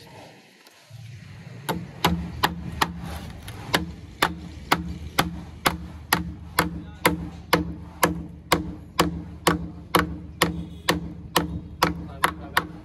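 Claw hammer striking a concrete-stained wooden formwork board braced against a plastered wall: a steady run of sharp blows, about two a second, starting about two seconds in.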